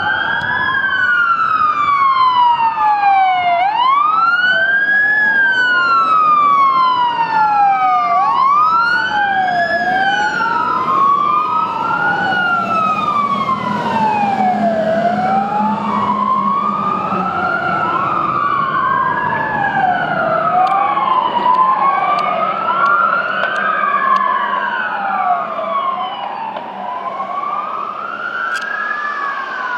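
Two fire engines' sirens wailing together out of step, each tone rising quickly and falling slowly about every four to five seconds. A Scania fire truck's engine is heard as it passes close, about halfway through.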